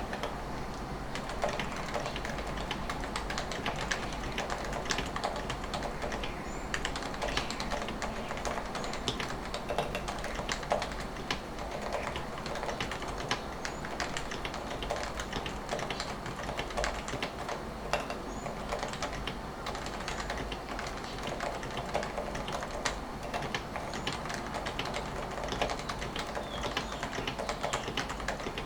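Continuous typing on a modded Topre Realforce R3S keyboard: its Topre rubber-dome switches with Deskeys carrot 49g domes, lubed sliders, housing gaskets and #3 silencing rings, under the stock PBT keycaps. The result is a quick, steady run of soft, muted keystrokes.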